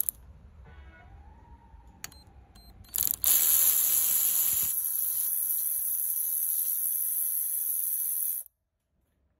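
A power tool driving a 14 mm socket on the A/C compressor clutch's centre bolt runs steadily for about five seconds to loosen it, then cuts off suddenly.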